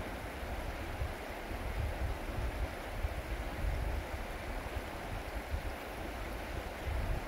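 Fast river current rushing steadily, with uneven low rumbling from wind on the microphone.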